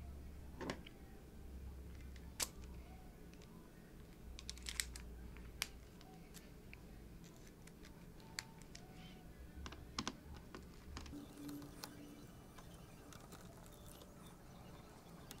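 Scattered small clicks and taps of hands working plastic parts inside an open laptop as its battery is being taken out, with a faint low hum coming and going.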